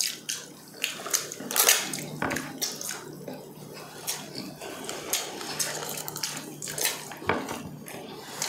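Close-up wet eating sounds: irregular chewing, lip-smacking and squelching as fatty braised pork leg and rice are eaten by hand.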